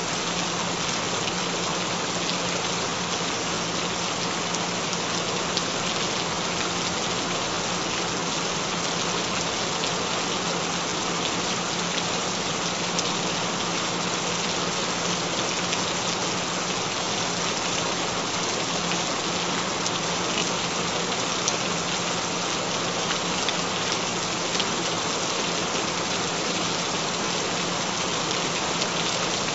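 Recorded rain falling steadily, an even hiss of drops with no thunder, over a faint steady low tone.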